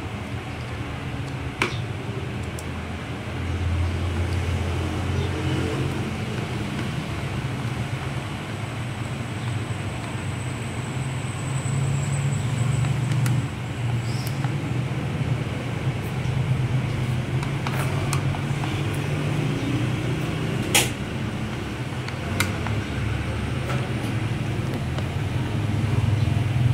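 A steady low mechanical rumble that swells and eases over several seconds, with a few short sharp clicks from handling the plastic speedometer housing and panel cover.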